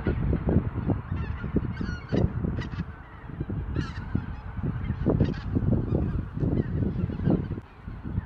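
A large flock of wild geese honking in flight, many overlapping calls.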